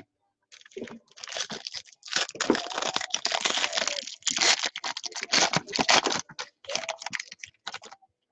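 Foil trading-card pack being torn open and crinkled by hand, a dense run of crackling and ripping, then the wrapper is peeled off the cards.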